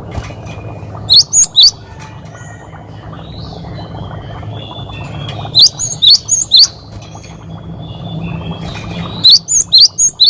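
Cinereous tit (gelatik batu) singing its 'wucit wucit' song: three loud phrases of three to four sharp, high notes each, about a second in, near the middle and near the end. Softer chirps and a steady low hum lie underneath.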